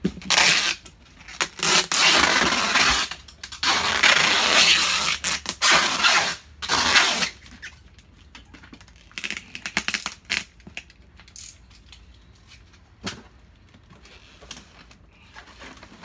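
Clear packing tape being pulled off the roll and pressed onto a cardboard box: a loud tearing screech in several long pulls over the first seven seconds, then only scattered clicks and crinkles as the taped box is handled.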